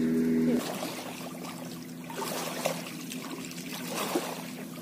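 A steady hum cuts off abruptly about half a second in. Then water pours out and trickles, with small irregular splashes.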